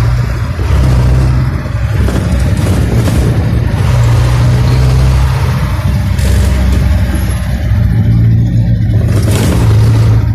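Jeepney engine running while driving, heard from inside the cab: a loud low drone that swells and eases a little with the throttle.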